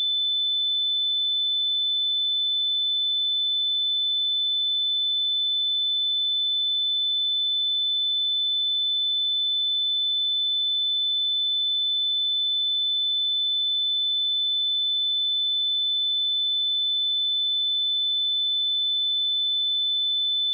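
A pure 3514 Hz sine-wave test tone: one steady, unwavering high-pitched beep held at constant level, generated for checking speakers or headphones.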